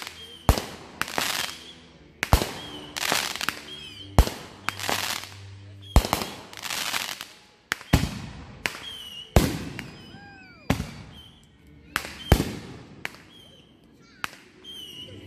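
Consumer aerial fireworks going off in a string: a sharp bang every second or two, each followed by a crackling sizzle of bursting stars. A few short whistles rise and fall between the bangs.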